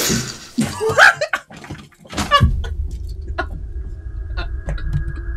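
Horror film soundtrack: a sudden loud hit at the start, a brief scream about a second in, then from about halfway a low drone with a faint high held tone and scattered clicks.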